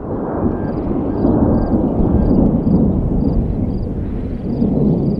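Thunder rumbling: a long, loud, uneven low roll that swells and fades over several seconds.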